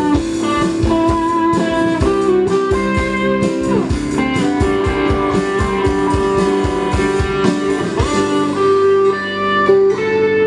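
Live rock band playing: electric and acoustic guitars over drums and bass. The drum beat stops about eight seconds in, leaving the guitars ringing on a held chord.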